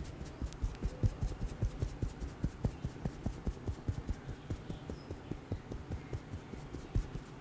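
Rapid, uneven run of soft low thuds, about five or six a second: hands tapping on a person in a percussive massage.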